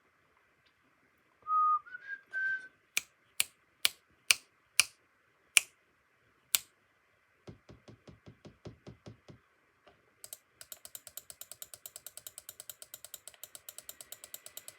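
Test sounds made for a sound tagger: a few short whistled notes stepping up in pitch, then about eight sharp taps roughly half a second apart, then quick clicking that settles into a fast, even run of about six clicks a second, like keys being struck.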